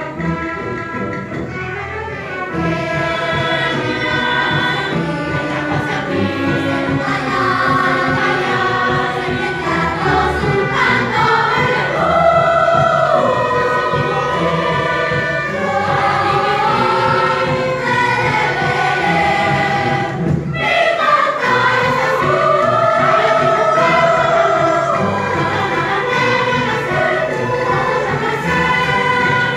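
Youth string orchestra, with cellos and double basses, playing together with a choir singing; the sung melody stands out more from about twelve seconds in, with a brief break just after twenty seconds.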